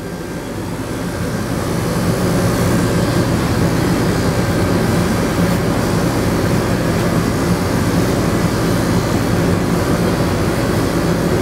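Electric pet clipper with a guard comb running steadily as it is worked through a dog's knotted face fur, a low hum with a hiss over it. It grows louder over the first couple of seconds as the clipper is brought in close.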